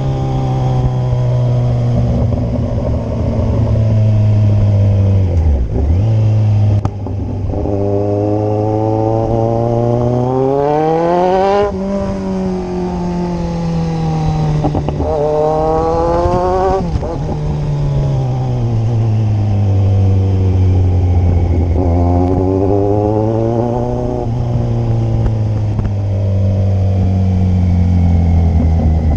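Kawasaki Z1000 inline-four motorcycle engine under way, accelerating through the gears. Its pitch climbs and then drops sharply at each upshift, about twelve and seventeen seconds in. It then runs lower and steadier before rising again near the end.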